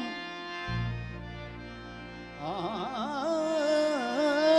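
Indian devotional bhajan music: a steady drone accompaniment holds on its own for a couple of seconds, with a deep bass note entering under it. Then the singer's voice comes back about halfway through with a wavering, ornamented melodic line.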